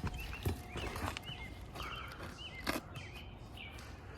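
A few sharp clicks and cracks with scraping as a tool works at a roofing nail in a brittle asphalt shingle that is breaking and crumbling. Short chirps of small birds sound through it.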